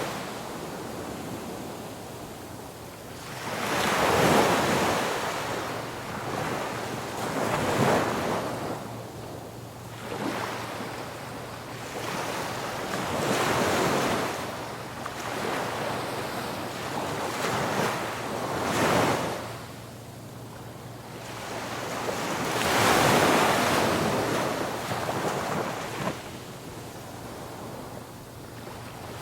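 Ocean waves breaking on a beach, surging and washing back one after another every few seconds, the largest about four seconds in and again near twenty-three seconds in.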